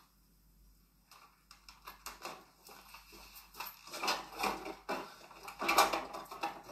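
Kitchen things being rummaged through: items on a worktop and in a fridge knocked, shifted and clinking, in an irregular run of quick clicks and clunks that grows louder from about four seconds in. Heard through a television's speaker.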